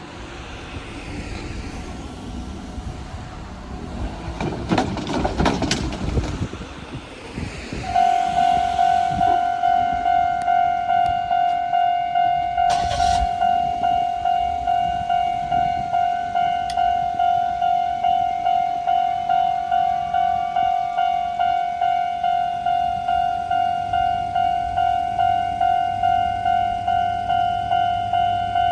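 Japanese railway level-crossing electronic warning bell. It starts about a third of the way in and rings on as a rapid, even string of clangs, the standard crossing tone at a fast tempo. Before it, a rising rumble with a few knocks fades away.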